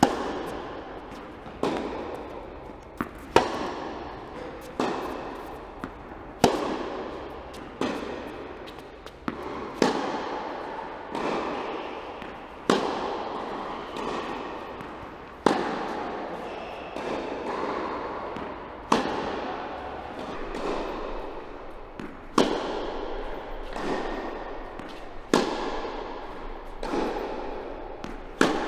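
Tennis rally: a racket strikes a tennis ball about every one and a half seconds, each hit a sharp pop that echoes around a large indoor tennis hall.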